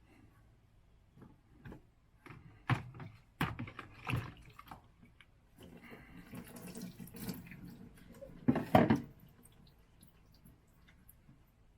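Water splashing and dripping in a bucket as a small dog is bathed, with scattered knocks and the loudest splashes about nine seconds in.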